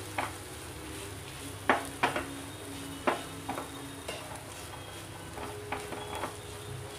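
Wooden spatula scraping and stirring ground sama rice (barnyard millet) as it roasts in ghee in a nonstick frying pan, with a soft sizzle underneath. The scrapes come in irregular strokes, the loudest about two seconds in.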